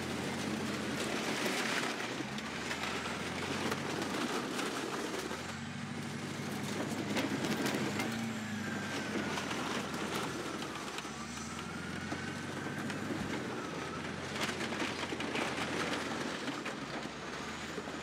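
Caterpillar crawler bulldozer's diesel engine running under load as its steel tracks roll over piled dirt bikes. Plastic and metal crunch and snap under it, with clanking from the tracks. A high whine wavers up and down midway.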